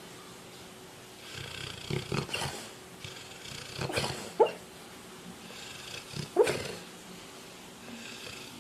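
A sleeping dog snoring, about one breath every two seconds; three breaths, each ending in a short sliding squeak.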